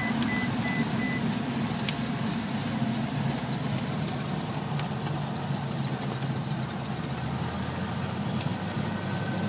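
Cessna 182's six-cylinder piston engine and propeller droning steadily, heard from inside the cockpit as the plane rolls out on the runway after landing. A short broken high beeping tone sounds in the first second.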